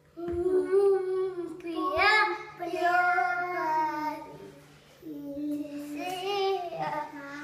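A young boy singing solo in drawn-out notes, with a short pause about halfway through.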